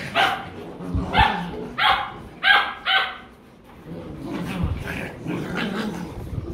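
Rottweiler puppies at play, giving five short, high-pitched yapping barks in about three seconds.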